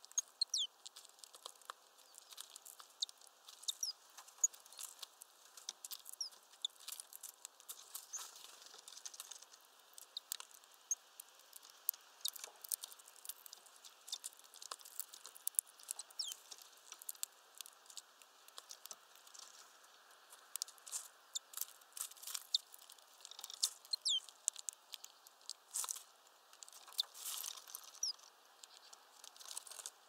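Small songbirds giving many short, high chirps, mixed with frequent light ticks and taps throughout.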